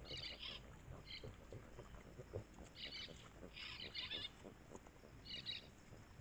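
Background recording of Brazilian forest birdsong: short, rapid buzzy trills repeated about five times, with faint scattered clicks underneath.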